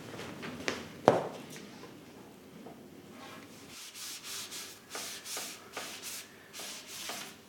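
A thump about a second in, then a small metal tool scraping the inside of a plaster sculpture mould in repeated strokes, roughly two a second.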